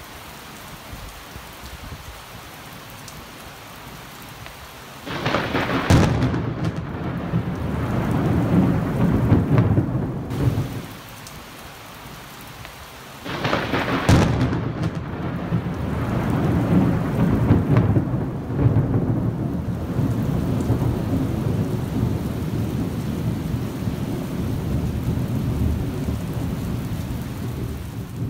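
Rain falling steadily, then two claps of thunder from a nearby lightning strike. Each starts with a sudden crack, about five and about thirteen seconds in, and rolls on as a long low rumble; the second rumbles on to the end.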